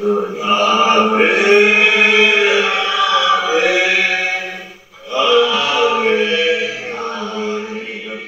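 Chanted vocal music: held sung notes over a steady low drone, with a brief break about five seconds in, then fading out near the end.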